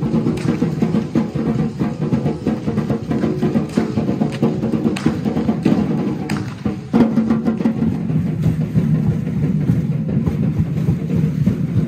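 Drums beating continuously for Aztec-style feathered dance troupes, with clicking and rattling percussion over the drumbeat.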